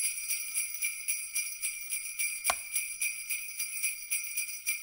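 Sleigh bells jingling in a steady rhythmic shake, about four shakes a second, with one heavier hit about two and a half seconds in.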